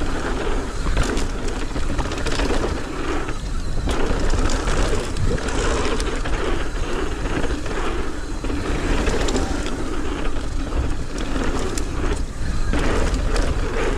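Mountain bike riding fast down a dirt trail: wind buffeting the microphone, tyres rolling over dirt, and the bike rattling and knocking over bumps.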